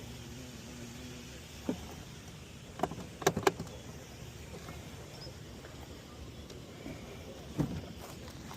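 A few short, sharp knocks and clicks, a quick cluster of them about three seconds in and another near the end, over a steady low background noise.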